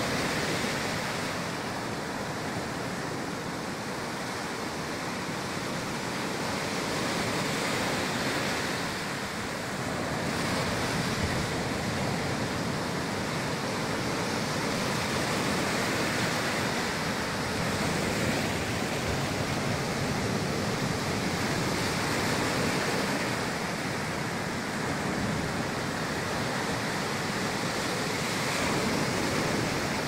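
Gentle Black Sea waves breaking and washing over a rocky sand beach: a steady rush of surf that swells and eases every few seconds.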